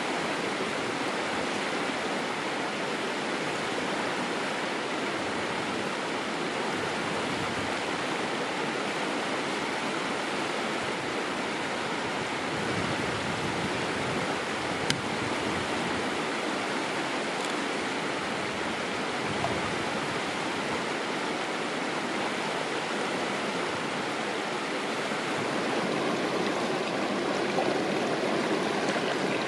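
Shallow stream flowing and rippling steadily over a stony bed, with one short click about halfway through.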